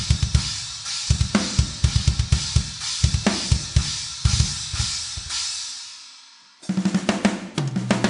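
Drum kit played in a metal style: fast double bass drum strokes under snare hits and washing cymbals. The playing breaks off about five and a half seconds in and the cymbals ring down, then quick hits on snare and toms start again about a second later.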